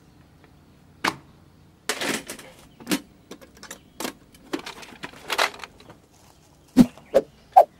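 A quick string of sharp clicks and short rustling swishes, ending with three loud sharp knocks about 0.4 s apart: a John Deere D100 lawn tractor's plastic hood lifted open and its metal oil dipstick pulled out, in quick-cut sound effects.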